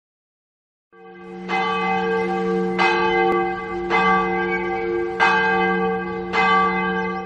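A large bell tolling: struck again and again about every second and a quarter, each strike's ringing carrying on under the next.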